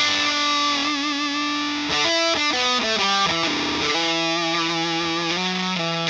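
Electric guitar on its bridge pickup through a Frank the Anvil FX Kitsune fuzz pedal, a hand-built modified Big Muff, with the fuzz and tone all the way up and the mids cut. It plays sustained distorted lead notes with vibrato and a few note changes.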